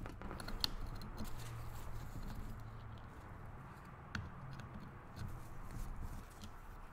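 Faint hand-tool handling: a few sharp little clicks and light scraping as a hex-key driver turns out the Allen bolts holding the ignition stator plate on a Honda CR85 two-stroke engine case.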